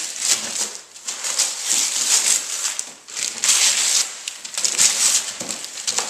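Gift wrapping paper being torn off a box and crumpled by hand, in a run of rips with short pauses between them.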